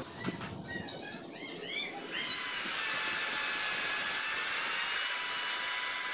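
Handheld electric angle grinder with a cutting disc comes in about two seconds in and runs steadily with a high whine and hiss, cutting through steel tie wire.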